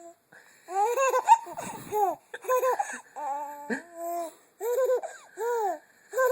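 Baby laughing in a string of short, high-pitched giggles, each rising and falling in pitch.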